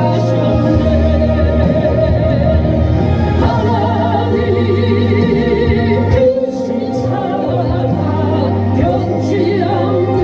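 Worship music: singing with instrumental accompaniment, held wavering sung notes over steady low bass notes, dipping briefly about six seconds in.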